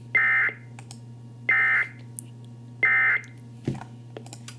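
Three short, identical bursts of Emergency Alert System SAME data tones, about a third of a second each and evenly spaced about a second and a third apart. Their shortness fits the end-of-message code that closes an alert. A steady low hum runs underneath.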